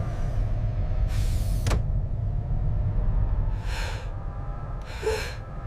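Steady low rumbling hum of a spacecraft cabin, with three short bursts of air hissing: about a second in, near four seconds, and near five seconds.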